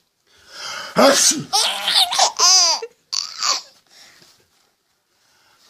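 A man's loud, drawn-out sneeze, an 'ah' rising into a sharp 'choo' about a second in, followed at once by a baby laughing in several high-pitched bursts.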